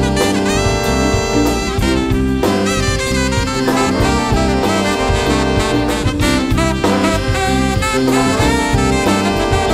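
Jazz big band playing: saxophone section and brass holding chords over drums and keyboard.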